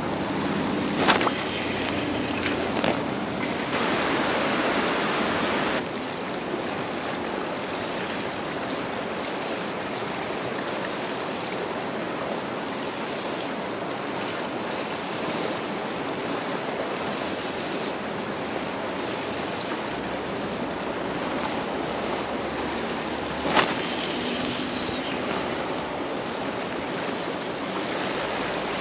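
River running high after a big rise, giving a steady, even rush of water. Two sharp knocks stand out, one about a second in and one near the end.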